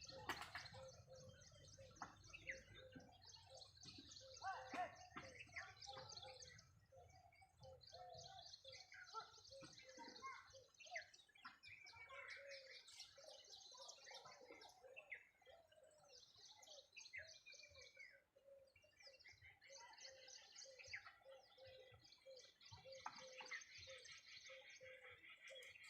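Faint chorus of many birds chirping and calling over one another, with one low note repeated at a steady rhythm throughout.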